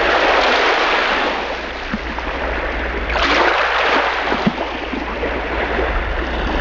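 Rushing, water-like underwater ambience with a steady low rumble beneath it; it swells about three seconds in.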